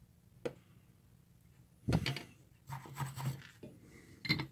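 Handling noises from hand-soldering a through-hole circuit board: a small click about half a second in, then rubbing and brushing as the board and solder wire are handled on the workbench, with a sharper tap near the end.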